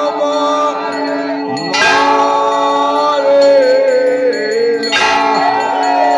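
Temple bells ringing without pause during an aarti, their tones ringing on. A louder bell strike lands about two seconds in and another about five seconds in.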